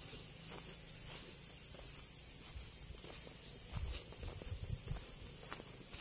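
Steady high-pitched chorus of insects, with faint footsteps on a garden path and a few low thumps about four seconds in.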